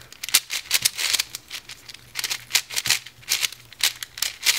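Plastic pieces of a 5x5 speed cube clicking and clacking as its layers are turned quickly by hand, in irregular rapid clusters.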